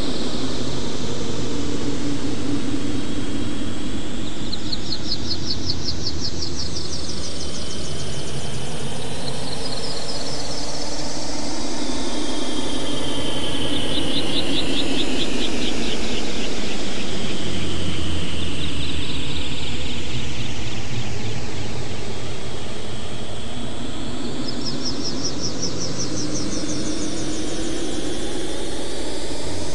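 Synthesized electronic soundscape made in SuperCollider: a dense hissing wash whose tone sweeps slowly up and down over a low hum. Three times it carries a rapid high fluttering chirp that glides up and down.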